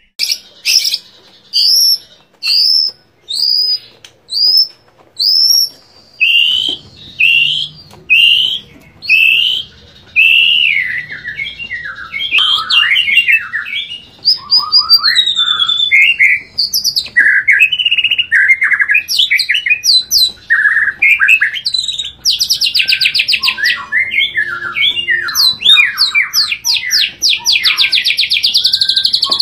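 White-rumped shama singing: a series of short repeated whistles, each flicking up and then down, then a varied song of slurred whistled phrases. About two-thirds of the way through it breaks into a fast, dense canary-like trill.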